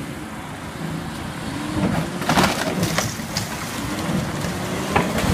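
Tractor-trailer's diesel engine working through a tight turn, its pitch rising and falling, with a run of sharp cracking impacts about two to three and a half seconds in and another near the end as the truck hits something at the corner.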